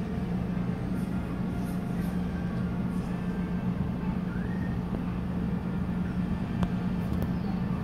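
Steady low hum and rumble of background noise. About four seconds in comes a single faint, short rising squeak from a two-week-old puppy.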